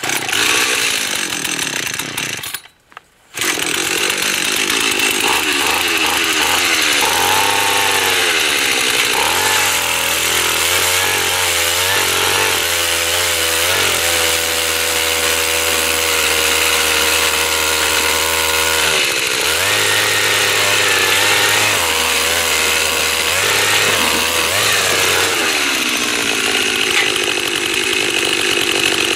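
Gas-powered ice auger engine catching on a pull, cutting out for a moment about two and a half seconds in, then running hard as the auger drills through the lake ice. The engine speed dips and recovers again and again as the bit bites into the ice.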